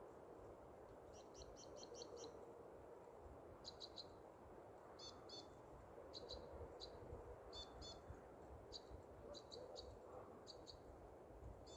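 Faint crossbill calls: short, dry, high notes in quick runs of two to six, repeated over and over, over a low steady rush of wind.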